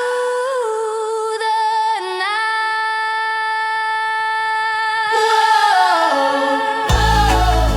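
Reggae gospel song in a stripped-down break: the bass and beat drop out while a singer holds one long note, then slides down. The bass comes back in near the end.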